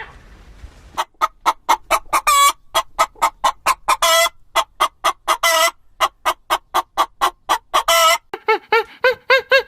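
Chicken clucking: a fast run of short clucks, about three or four a second, broken by a few longer squawks. Near the end the calls change to quicker, arching notes.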